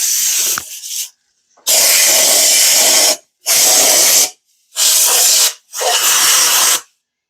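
Five short, loud hissing blasts, each about a second long and cut off sharply, from a pressurised nozzle.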